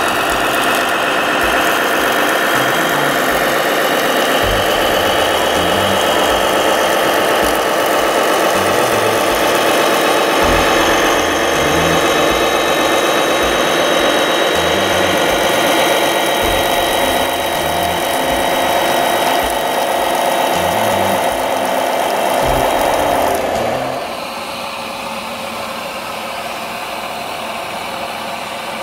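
RC fire truck running steadily while its water cannon sprays, an engine-like hum with steady whining tones. The sound drops abruptly to a quieter run about 24 seconds in.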